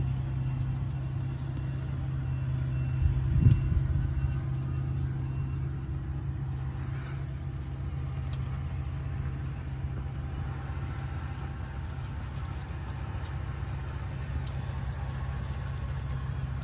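A steady low hum or rumble, with a short louder thump about three and a half seconds in.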